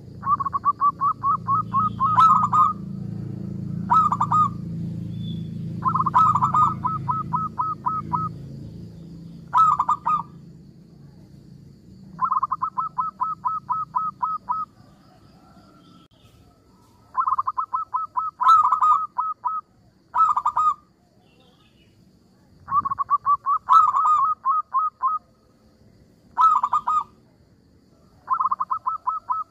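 Zebra dove (perkutut) singing: phrases of rapid staccato coos, long runs of about two seconds alternating with short bursts. A low steady hum runs under the first dozen seconds.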